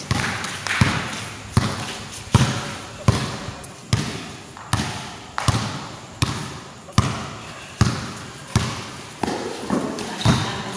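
A basketball being dribbled on a court in a steady rhythm, about one bounce every three-quarters of a second, each bounce followed by a short echo.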